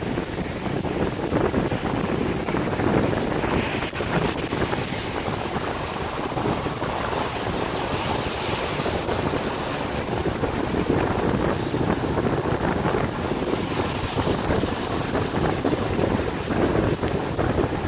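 Wind buffeting a phone's microphone: a rough, rumbling noise that swells and eases in gusts.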